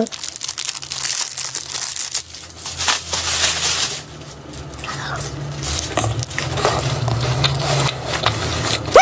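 Clear plastic wrapper of an ice pop crinkling as it is handled and pulled off, loudest in the first four seconds. Softer crunching follows as the frozen ice pop is bitten and chewed.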